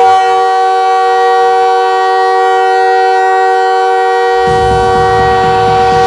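Montreal Canadiens hockey goal horn: a loud, steady chord of several horn tones held throughout. The goal song's music comes in underneath about four seconds in.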